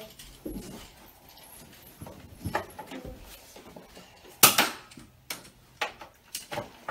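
A few sharp plastic clicks and knocks, the loudest about four and a half seconds in, from a small foam-dart toy blaster being handled and loaded.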